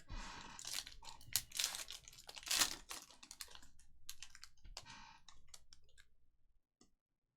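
Trading cards being handled: a quick run of irregular clicks and rustles as cards are flipped, slid and sorted by hand, with a louder rustle about two and a half seconds in, thinning out near the end.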